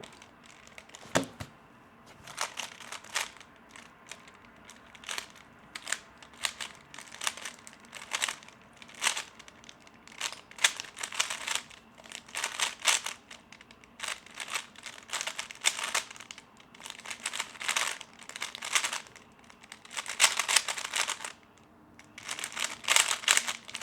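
A 3x3 Rubik's speedcube being turned fast during a solve: rapid runs of plastic clicks and clatter, broken by short pauses between bursts of turning.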